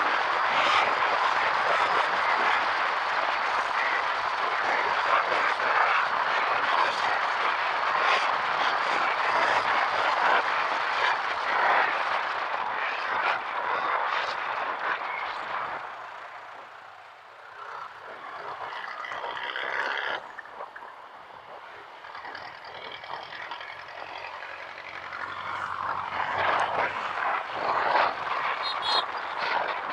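Wind rushing over the microphone with road noise while riding a motorcycle on a city street. It dies down for a few seconds about halfway through as the bike slows, then builds again as it picks up speed.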